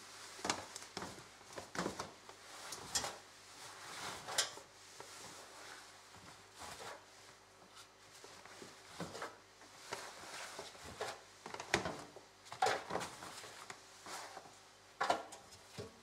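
Laundry being handled and stuffed into a front-loading washing machine's drum: irregular rustling of fabric with soft knocks and bumps, coming in uneven bursts.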